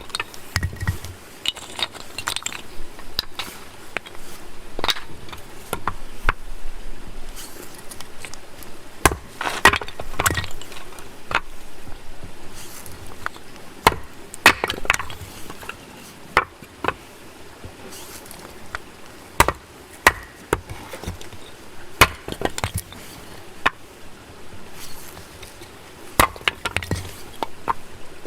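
Wood fire burning, crackling and popping with irregular sharp snaps over a steady low hiss.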